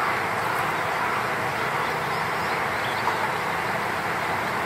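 Steady outdoor background rushing noise, even and unchanging throughout.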